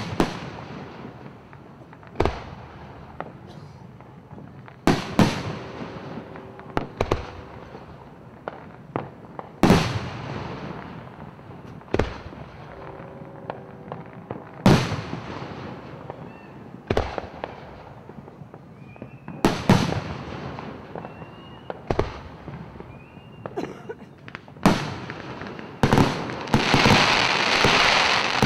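Aerial firework shells bursting over and over, a sharp boom every two to three seconds, each trailing off in a rumbling echo. A dense crackling rises over the last couple of seconds.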